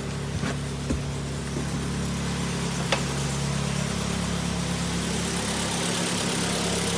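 Kia Sportage G4KD 2.0-litre four-cylinder engine, freshly rebuilt with resleeved cylinders and new pistons, idling steadily, heard from outside the car; it runs evenly and quietly with no piston knock. A single click about three seconds in.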